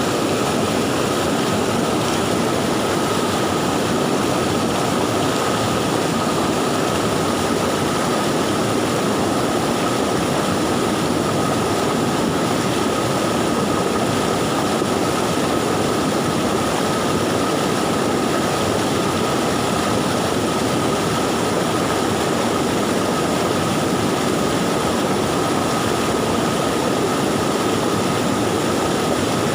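Fast-flowing river swollen by floodwater, rushing in a loud, unbroken, even roar. A faint steady high tone runs through it.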